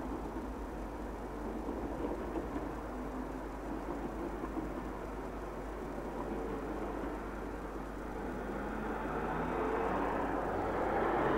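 Road traffic: cars driving past with a steady tyre-and-engine hiss over a constant low hum. One car passing close grows louder from about eight seconds in, loudest near the end.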